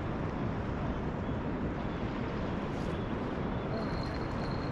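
Wind buffeting the microphone: a steady low rumbling noise.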